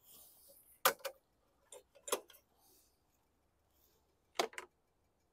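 Footsteps of shoes on a concrete driveway: a handful of faint, sharp taps, several in quick pairs, as a person walks around a walk-behind lawn mower.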